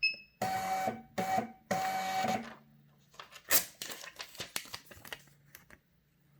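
A short electronic key beep, then the Ishida Uni-7 scale's built-in printer running in three stretches as it feeds out a receipt label, followed by a string of light clicks and ticks.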